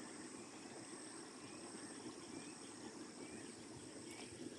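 Faint outdoor ambience: a steady high drone of insects with small chirps repeating about twice a second, over a low, even rush of river water.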